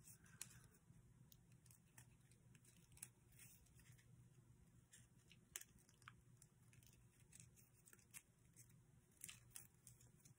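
Near silence with faint, scattered small clicks and rustles of folded paper being handled, as paper missile fins are worked into an origami jet's missile rack.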